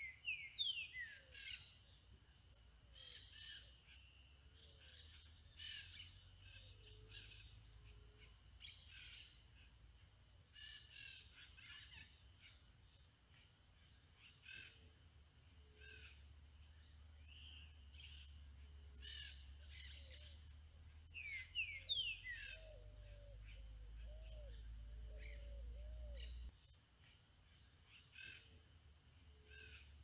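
Green-winged saltator (trinca-ferro) singing: short phrases of clear whistled notes, several falling in pitch, repeated every few seconds and loudest near the start and about 22 seconds in. A steady high-pitched insect drone runs underneath.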